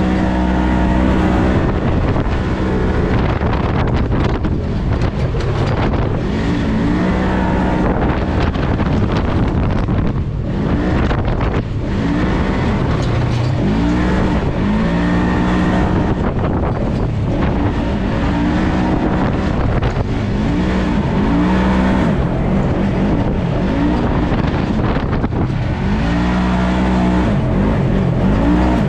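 Polaris RZR side-by-side's engine running hard under load, its pitch rising and falling again and again as the throttle is worked, over a steady heavy rumble.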